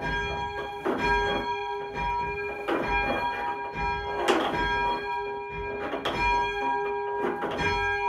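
Church tower treble bell being rung down from the ringing chamber, its clapper striking about every one and a half to two seconds, each stroke leaving a ringing tone that carries on into the next.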